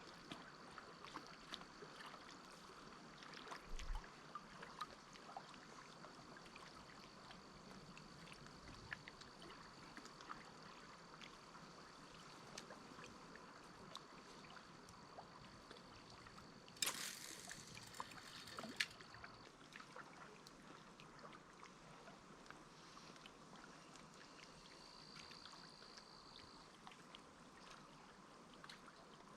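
Faint water lapping and trickling, with many small clicks and knocks. There is a short rushing splash-like burst about seventeen seconds in, and a faint steady high tone that stops soon after.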